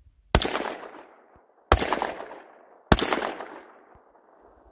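Panzer EG200 gas-piston semi-automatic shotgun firing three buckshot rounds in quick succession, about 1.3 seconds apart. Each shot is sharp and followed by a long echo that fades out.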